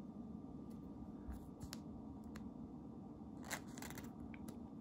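Faint light clicks and soft rustles of a trading card being slid into a plastic card sleeve, scattered over a low steady hum.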